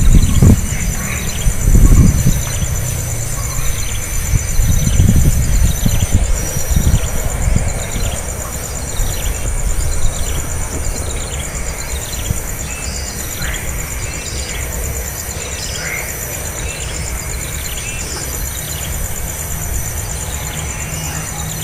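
Outdoor ambience: a steady high insect buzz, with a bird giving short falling calls over and over. Low rumbling in the first few seconds dies away.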